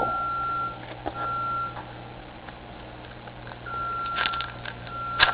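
Electronic beeping at one steady high pitch: two short beeps, a pause of about two seconds, then longer beeps, over faint rustling and clicks of trading cards and packs being handled.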